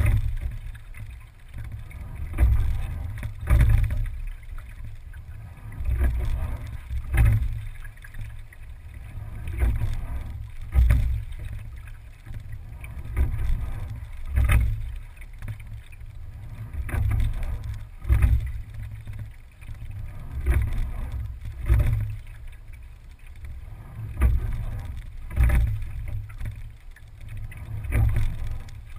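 Single scull being rowed at a steady, easy rate of about one stroke every three and a half seconds. Each stroke brings a few sharp knocks from the oars and rigging and a surge of water along the hull, over a low steady rumble.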